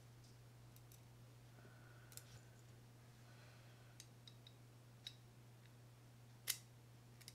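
Near silence with a few faint, sharp clicks of small metal baitcasting-reel parts being handled, the loudest about six and a half seconds in, over a steady low hum.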